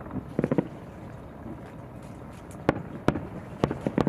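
Fireworks going off: a quick cluster of crackling pops about half a second in, then a run of single sharp bangs roughly half a second apart near the end, over a low rumble.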